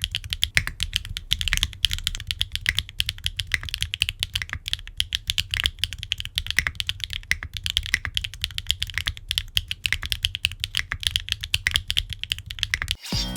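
Rapid, continuous typing on a gasket-mount aluminium-cased 65% mechanical keyboard (Qwertykeys Neo65 Core Plus) with HMX Yogrut S linear switches, an aluminium plate, no foam and ABS double-shot cherry-profile keycaps. The keystrokes stop suddenly near the end, and electronic music starts.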